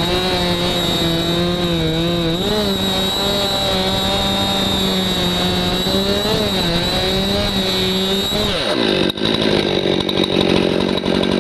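Stihl MS261 C-M two-stroke chainsaw at high revs cutting wood, its pitch wavering as it works. About eight and a half seconds in, the revs fall away.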